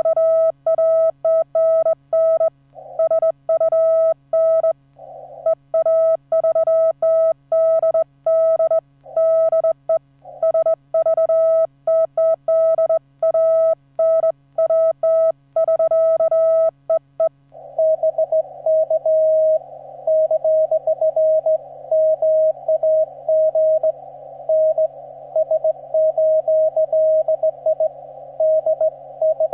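Morse code on the 15-metre amateur band: for about the first seventeen seconds the operator's own hand-keyed CW heard as a clean, steady sidetone, then the other station's reply received at the same pitch through a narrow 300 Hz CW filter, with band hiss between the dots and dashes.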